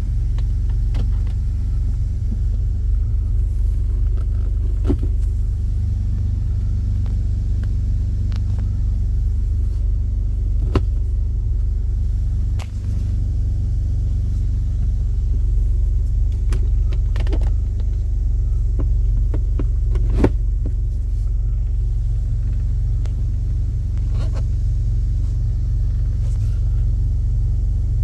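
2003 Jeep Liberty's 3.7L V6 running with a steady low rumble, with a few sharp clicks along the way.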